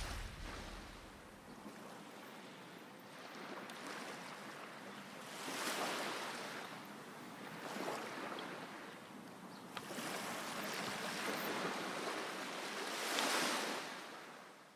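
Quiet waves washing ashore, a soft rushing that swells and ebbs several times, with the largest surge near the end. The tail of the background music fades out in the first second or so.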